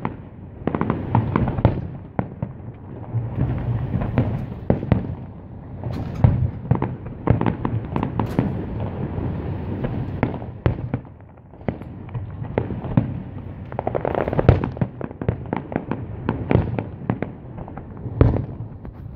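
Fireworks display: aerial shells bursting in rapid volleys of bangs and crackle. The bursts ease off briefly a little past halfway, then pick up again in a dense barrage.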